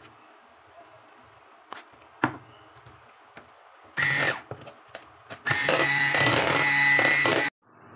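Grundig electric hand mixer whipping egg whites toward stiff peaks: after a quiet start with a sharp knock a couple of seconds in, the mixer runs briefly about four seconds in, gives a few short pulses, then runs steadily with a high whine for about two seconds and cuts off abruptly near the end.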